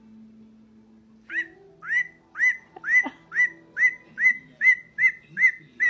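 Cockatoo whistling a run of short, rising whistled notes, about two a second, starting a little over a second in.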